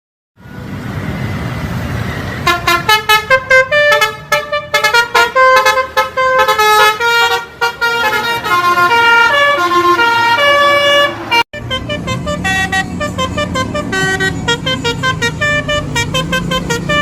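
Tour bus 'telolet basuri' musical horn playing a fast tune of quick stepping notes over the low rumble of the bus engine. The tune starts about two seconds in. It breaks off for an instant about eleven seconds in, then another run of notes follows.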